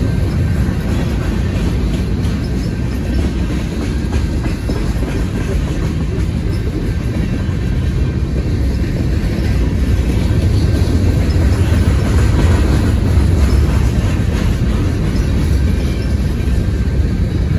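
Freight cars of a long mixed freight train rolling past: a steady low rumble of steel wheels on rail with clatter, getting somewhat louder about ten seconds in.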